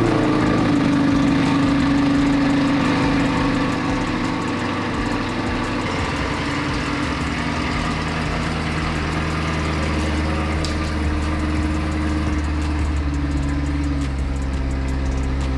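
Chevrolet C8 Corvette's V8 idling just after start-up. Its steady running shifts to a lower pitch about six seconds in.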